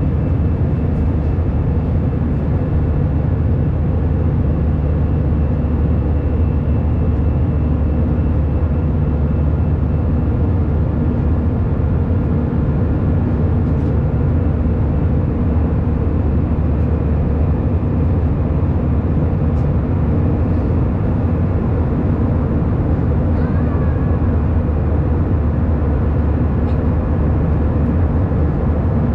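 Steady in-flight cabin noise of an Airbus A319 heard beside the wing: an even, low-pitched roar of the jet engines and rushing air, with faint steady tones over it and no change in level.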